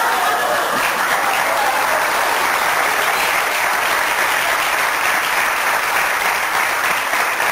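Studio audience applauding: steady, sustained clapping from a large crowd.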